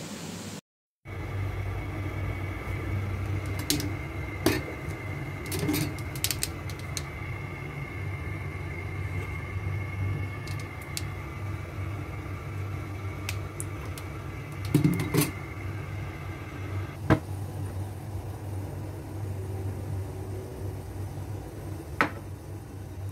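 Steel ladle clinking and scraping against an empty wok a handful of times as the wok heats until it smokes, over a steady low hum from the stove.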